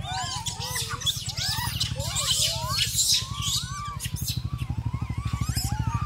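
A troop of rhesus macaques calling while feeding together: many short, high calls that rise and fall in pitch, overlapping one another, with rustling and clicks. Underneath, a small engine idles with a steady low pulse that grows louder in the second half.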